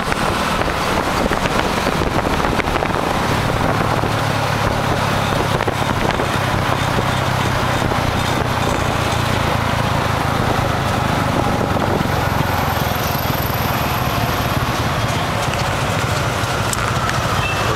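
Riding in a motorbike-drawn tuk tuk through city traffic: the motorbike's engine hums steadily under a constant rush of wind and road noise.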